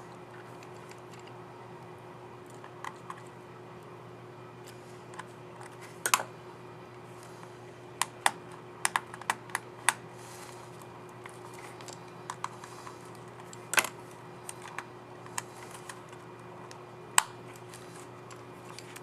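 Dell Latitude 5400 laptop keyboard keys giving scattered sharp plastic clicks as a keycap is pressed onto its scissor mechanism and tested. The clicks come singly or a few together, with a quick run of them about eight to ten seconds in, over a faint steady hum.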